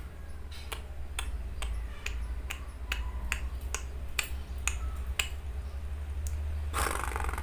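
Lovebird giving sharp single ticking chips, about two a second, then breaking into a harsh rapid chatter near the end.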